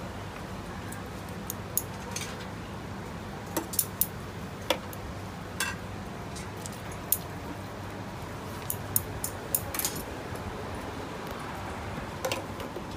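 Scattered clinks and snips of steel scissors and metal utensils against stainless steel bowls and trays, about a dozen short sharp strikes, over a steady low hum.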